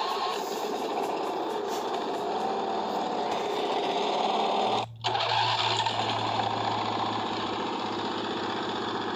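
Huskee riding lawn tractor's engine running. The sound cuts out abruptly for a moment about five seconds in, then the engine carries on with a steady low hum.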